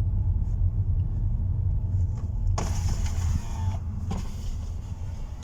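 Inside a 2012 Toyota Camry while driving: steady low road and engine rumble, with a brief rustling hiss about two and a half seconds in and a couple of faint knocks.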